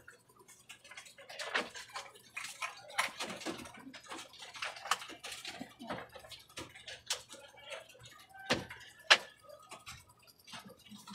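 Pigeons in a wire-mesh loft pecking at feed: a run of irregular, sharp taps and clicks.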